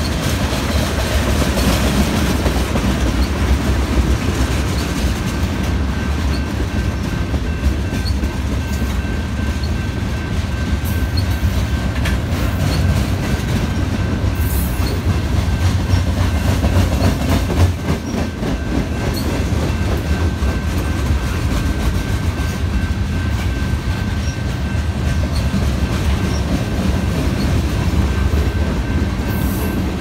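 Freight train of tank cars and covered hopper cars rolling past at close range: a steady loud rumble of steel wheels on rail, with a thin steady high tone over it.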